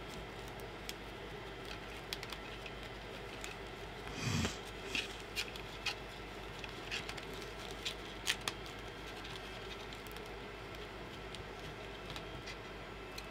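Light rustling and scattered small clicks of wires and a braided textile cable sleeve being handled as the cables are tucked into the wrap, over a faint steady hum. There is one louder brushing noise about four seconds in.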